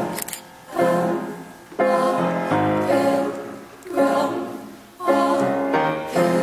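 Slow music with sung voices: long held notes in phrases that swell and fade about once a second.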